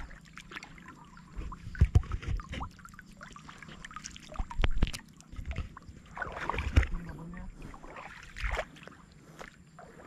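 Water splashing and sloshing in irregular bouts, with low thumps and a few sharp clicks.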